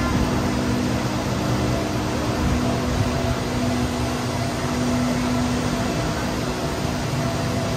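Steady mechanical hum: an even hiss with several held low tones, one of which grows stronger about two seconds in and drops back about six seconds in.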